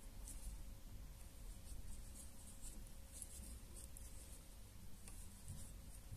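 Faint, irregular scratching and rustling of a metal crochet hook catching and pulling cotton yarn through the edge loops of a felt sole, as single crochet stitches are worked one after another.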